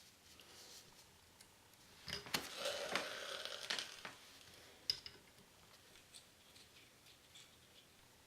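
Soldering gun working solder into a brass bullet connector: a brief crackling sizzle of about two seconds starting around two seconds in, then a single sharp click, with faint ticks otherwise.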